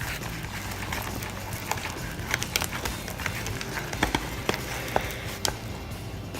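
Thick, sticky homemade slime being stirred and worked in a bowl, giving irregular squelching clicks as it starts to come together.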